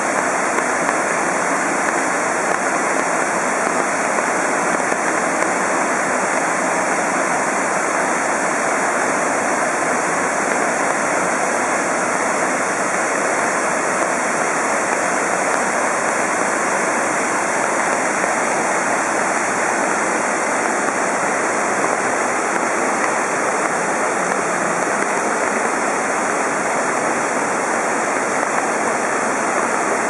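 Small forest waterfall and the rocky stream below it rushing steadily, running high with rainy-season rainwater.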